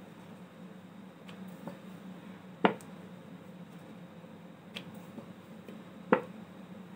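Wooden rolling pin rolling out flour dough on a round wooden board, with two sharp knocks of wood on wood about three and a half seconds apart and a few fainter taps, over a faint steady hum.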